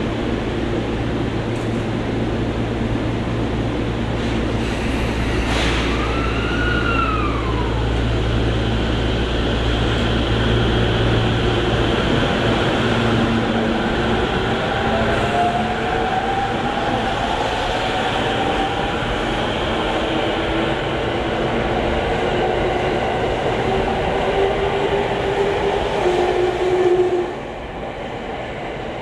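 Musashino Line commuter electric train pulling out of the platform: a steady low hum at first, then from about halfway the traction motors' whine rising slowly in pitch as the cars gather speed past. A brief gliding whistle-like tone sounds about six seconds in, and the level drops suddenly near the end.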